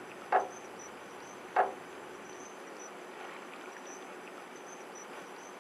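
Faint night ambience with crickets chirping in a thin, high, on-and-off trill. Two brief soft sounds come near the start, about a third of a second and a second and a half in.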